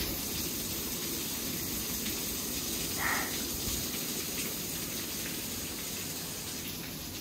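Water falling from above and splashing steadily onto an old mill waterwheel, with a short louder sound about three seconds in.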